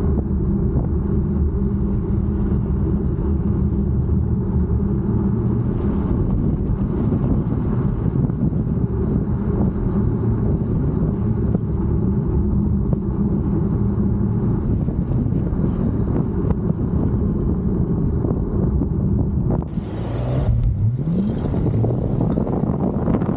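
Steady low rumble of a moving vehicle. About twenty seconds in, a short rising whine is followed by wind noise on the microphone.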